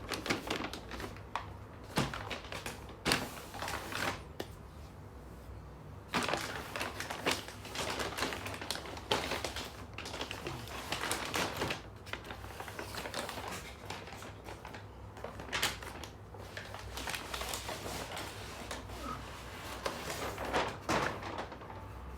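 Sneaker box and its paper packaging being handled: irregular knocks and taps on cardboard mixed with stretches of paper rustling.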